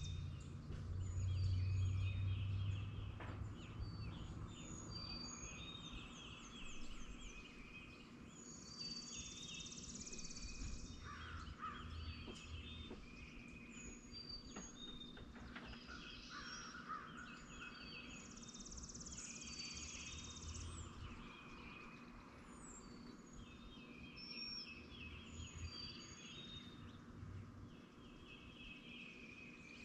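Morning dawn chorus of several songbirds: repeated short chirps, trills and quick falling whistles, with a lower, harsher caw-like call about 11 and 16 seconds in. A low rumble sits underneath, strongest in the first few seconds.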